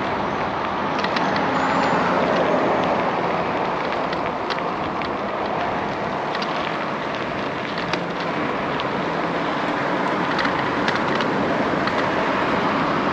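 Steady rush of road traffic and wind noise heard from a moving bicycle's camera, swelling slightly about two seconds in, with light clicks scattered throughout.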